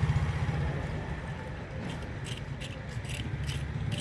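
Small toy vehicles and pebbles being handled in sand: a string of short clicks and scrapes starting about a second and a half in, over a steady low rumble.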